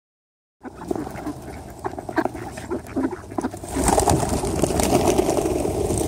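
Ducks and pigeons pecking and calling close by, then a little before four seconds in the flock takes off at once in a loud rush of flapping wings, scared off by a passing heron.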